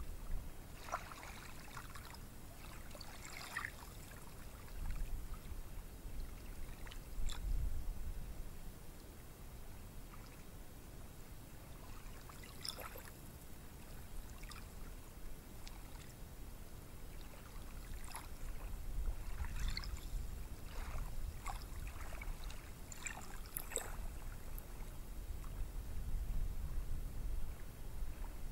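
Ocean surf breaking and washing on a beach, a steady low rumble that swells and eases in waves and grows louder in the second half, with scattered faint crackles of fizzing water.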